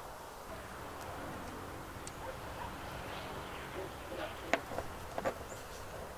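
Faint steady outdoor background with a few short sharp clicks, about two thirds of the way through and again a second later, from pliers working the end of a solar panel cable.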